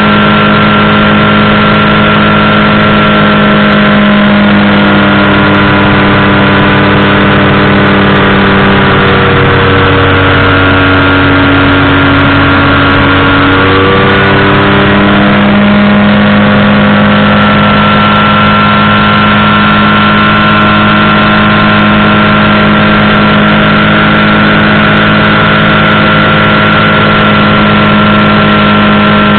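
Powered parachute's engine running loud and steady. Its pitch drops about nine seconds in and comes back up some five seconds later as the throttle is eased and reopened.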